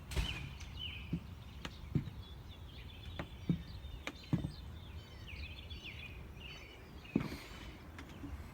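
Small birds chirping repeatedly in short downward-sweeping calls, over a low steady outdoor rumble, with scattered sharp clicks.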